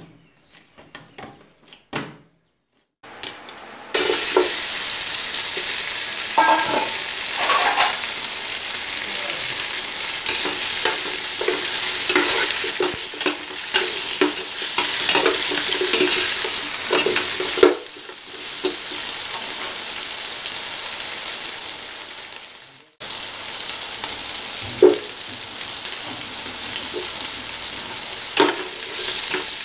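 Meat, bones, tomato, onion and ginger sizzling in a hot aluminium stockpot, stirred with a metal ladle that knocks and scrapes against the pot. The sizzle starts about four seconds in, after a few seconds of faint dough-kneading sounds.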